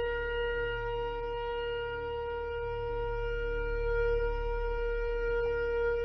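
Shofar sounding one long, steady note, held without a break over a low hum.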